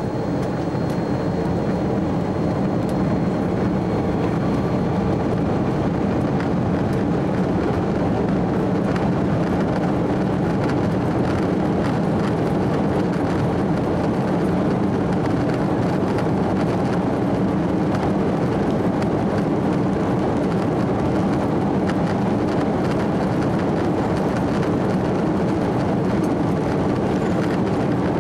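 Airbus A330-300's Rolls-Royce Trent 700 turbofan engines at high power, heard from inside the cabin as a steady, dense rumble, with the wheels rolling down the runway during the take-off run. The level climbs a little at the very start, then holds.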